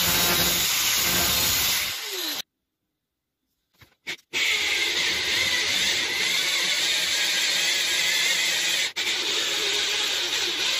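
Angle grinder grinding the tip of a 12 mm twist drill bit, then switched off and spinning down about two seconds in. After a short silence and a couple of clicks, a mounted electric drill runs steadily, the resharpened bit cutting into steel plate, with one brief dropout.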